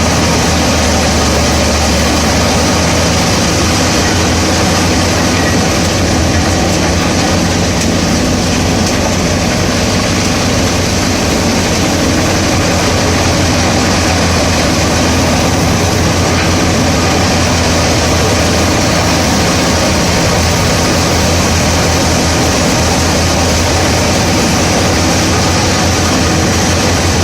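Pezzolato PTH 900 M drum wood chipper and its IVECO C10ENTX diesel engine running steadily at working speed, with a loud mechanical whir.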